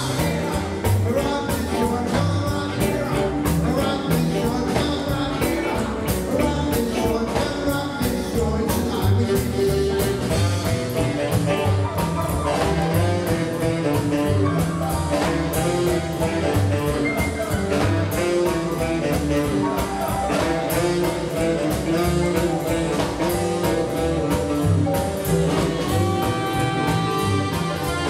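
Live rock 'n' roll band playing: hollow-body electric guitar, tenor saxophone and a drum kit with a steady beat, and a male lead vocal. Long held saxophone notes near the end.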